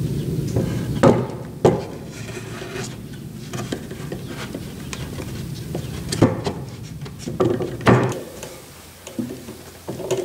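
Wooden boards of a dovetail joint knocking and rubbing together as the joint is fitted by hand, with four sharp wooden knocks and scraping in between, over a steady low background noise.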